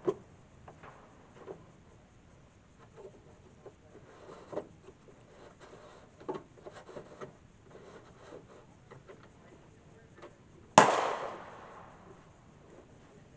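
One loud rifle shot from a Century Arms CETME C308 (.308) battle rifle near the end, its report ringing out and dying away over about a second. Before it, faint clicks and knocks of the rifle being handled on its rest.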